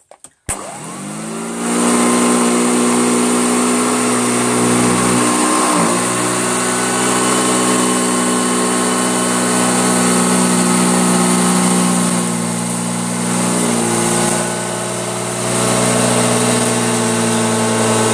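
Hoover Junior bagged upright vacuum cleaner switched on with a click, its motor winding up over about a second and a half and then running steadily. The level dips briefly about two-thirds of the way through before coming back up.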